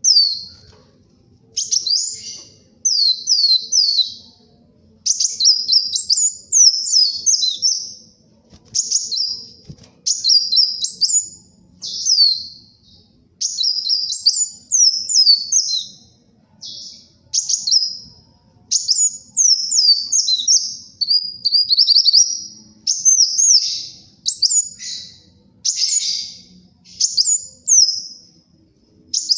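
Kolibri wulung sunbird singing vigorously: a rapid run of short phrases of high, thin, sharply falling twittering notes, one phrase after another with brief gaps of about a second.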